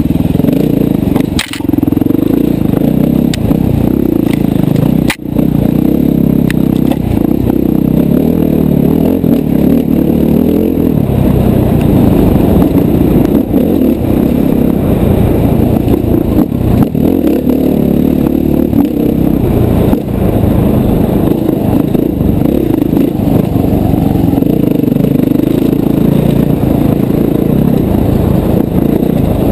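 KTM dirt bike engine running under constantly changing throttle on a trail ride, heard from a helmet camera. The sound briefly drops about one and a half seconds in and again around five seconds in.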